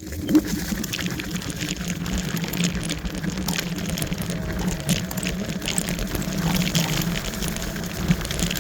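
Wolf Warrior electric scooter on the move: a steady rushing, rumbling noise of tyres on a rough track and air across the microphone, with a wavering low hum and scattered rattles. It starts suddenly.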